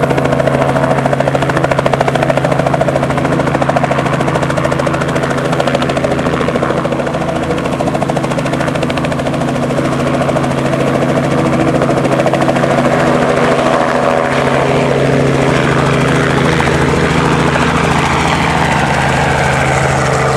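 Robinson R44 helicopter running steadily: its six-cylinder piston engine and two-blade main rotor make a constant drone with a fast, even beat.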